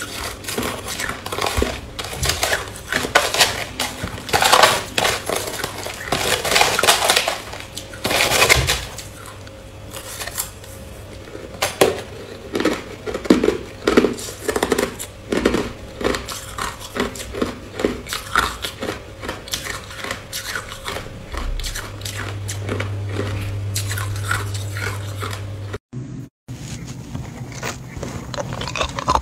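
Crushed ice crunched between the teeth close to the microphone, with a metal spoon scraping and scooping the ice in a plastic cup. Through the middle the chewing crunches come about twice a second.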